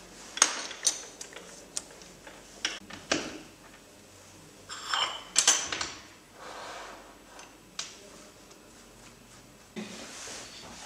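Metal letterpress type and metal furniture clinking and clacking as they are handled and laid into a metal chase: scattered sharp metallic clicks and knocks, a busier, louder cluster about halfway through.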